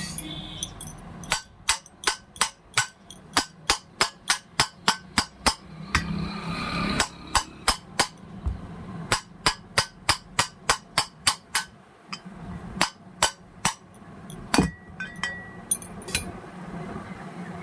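Hammer tapping on metal parts of a ceiling fan motor during a bearing change, sharp strikes about three a second. They come in two long runs with a short break between, then a few scattered strikes near the end.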